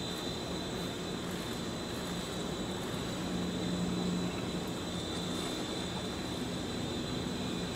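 Steady open-air stadium ambience: a low engine-like drone that swells a little in the middle, under a thin steady high whine, with no starting gun or crowd noise.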